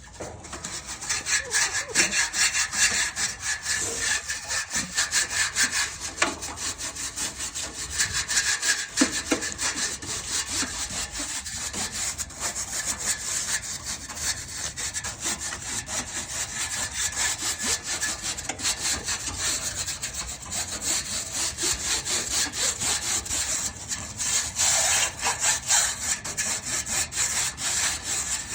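Coil brush scrubbing the fins of an HVAC condenser coil in rapid back-and-forth strokes, a continuous dry rasping.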